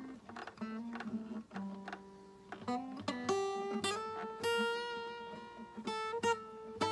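Acoustic guitar played solo: short picked notes for the first few seconds, then chords struck about three seconds in and left to ring, with a few more struck near the end.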